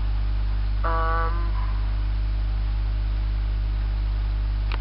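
Steady low electrical hum throughout. About a second in, a woman gives one short held vocal sound lasting about half a second, and a faint click comes near the end.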